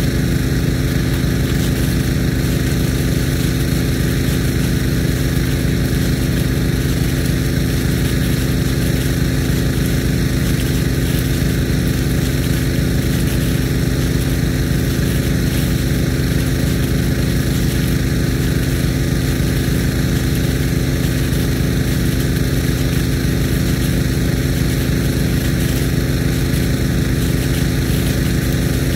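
Steady drone of an engine-driven irrigation pump running without a break, under the even hiss of water spraying from a Nelson P150 big-gun sprinkler.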